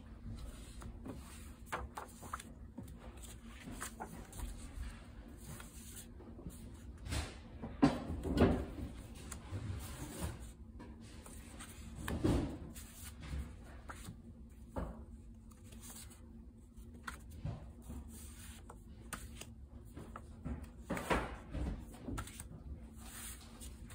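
Loose paper notecards being leafed through and laid down by hand: scattered paper rustles and soft taps, with louder ones about eight and twelve seconds in and again around twenty-one seconds.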